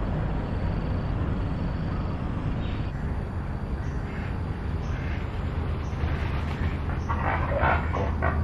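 A steady low rumble, then a cluster of short waterfowl calls about seven seconds in.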